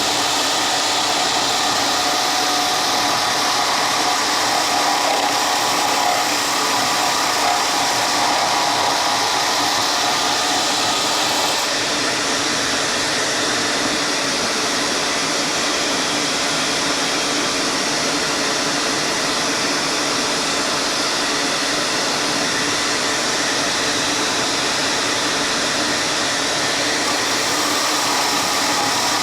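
Woodshop power tool running steadily: a continuous whir over a hiss. Its tone shifts slightly about twelve seconds in and again near the end.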